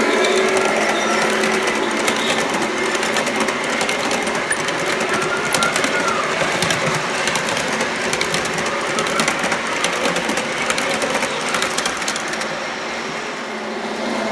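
Large-scale model freight train rolling past close by, its cars' metal wheels clicking rapidly and evenly over the track with a steady rolling rumble. The locomotives' onboard sound unit plays a diesel engine sound that fades out at the start.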